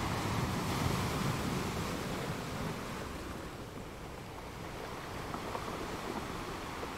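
Surf washing on a beach: a steady rushing wash of water that swells over the first couple of seconds and then eases off.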